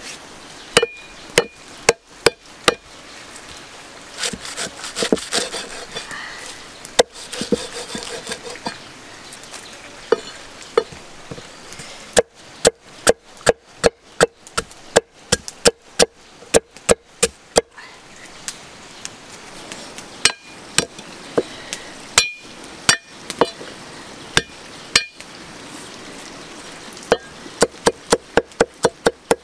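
Cleaver chopping galangal on a thick wooden chopping block: sharp knocks, singly at first, then in steady runs of about three to four strokes a second, faster near the end.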